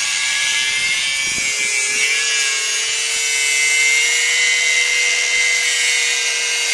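Corded electric power tool running steadily under the car while the exhaust is being taken off. Its motor pitch dips briefly under load about a second and a half in.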